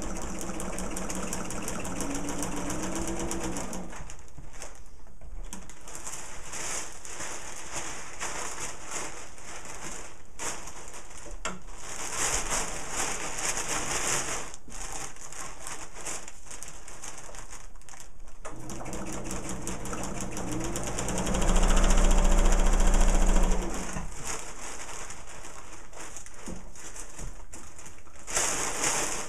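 Sewing machine stitching the burrito-roll seam of a parafoil kite: a fast, steady rattle of needle strokes over the motor's hum. The hum rises and runs loudest for about two seconds, some three-quarters of the way through.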